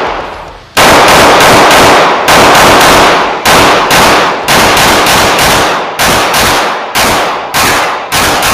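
Rapid string of unsuppressed shots from an FN 509 Tactical 9mm pistol, about three a second after a short pause, each shot ringing off the range walls. The pistol cycles through the string without a jam.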